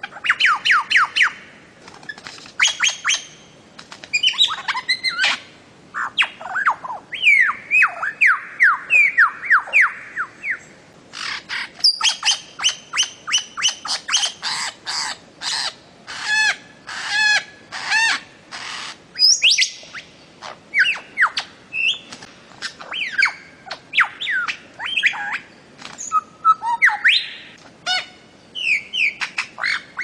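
Bird-of-paradise (cendrawasih) calling: runs of rapid, sharp down-slurred notes, several a second, repeated in bursts with brief pauses.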